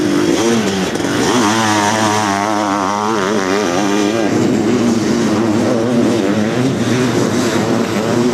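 Sidecar motocross outfits' engines running hard on the track. About a second in, one engine close by revs rapidly up and down for a few seconds, then settles into a steadier, lower drone as the outfits carry on.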